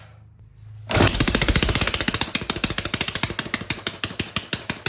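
Homemade 180cc single-cylinder four-stroke engine with 3D-printed parts catching about a second in and running on its own with a rapid string of loud, sharp firing pops. Near the end the firing slows as the engine starts to die.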